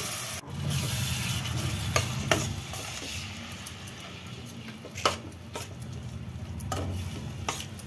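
Slotted metal spatula stirring soaked red lentils through hot oil and tomato in a metal pot, with sizzling and about half a dozen sharp scrapes and clicks of the spatula against the pot.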